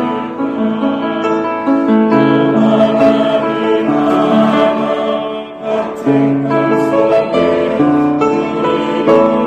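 Church choir singing a Korean hymn in sustained chords, accompanied by piano.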